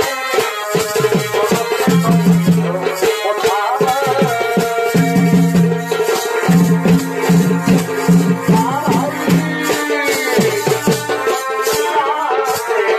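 Purulia Chhau dance music: drumming under a melody that slides up and down in pitch, over a held drone note.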